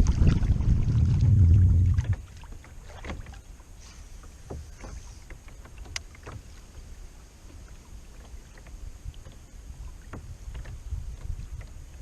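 Low rumble of wind on the microphone aboard a fishing kayak for about two seconds, then quieter, with scattered light clicks and knocks.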